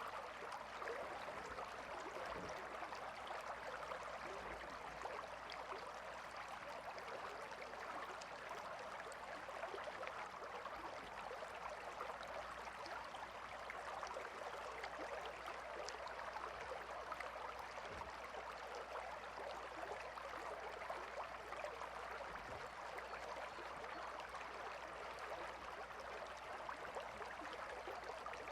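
A calm river flowing: a steady, even rush of moving water with faint scattered clicks from small splashes.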